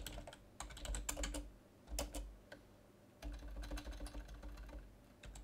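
Computer keyboard being typed on in quick runs of key clicks, with a short pause about halfway through.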